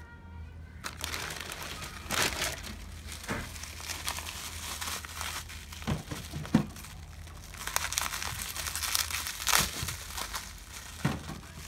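Packaging being crumpled and crinkled by hand while items are unwrapped: irregular crackling starting about a second in, with a few sharper crunches.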